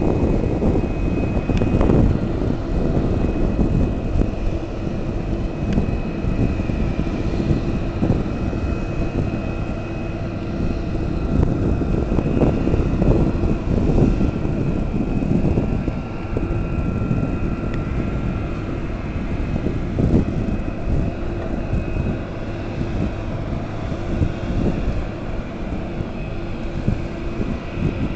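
Steady low rumble of a moving vehicle with wind on the microphone and a faint steady whine.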